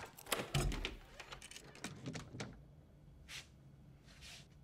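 Locks on an apartment door being undone: a quick run of metallic clicks and rattles over the first couple of seconds, followed by two short soft whooshes.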